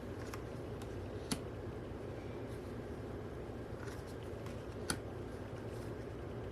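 Light clicks and taps from handling stiff photo cards: two sharp clicks, about a second in and near five seconds in, with a few fainter ticks around them, over a steady low room hum.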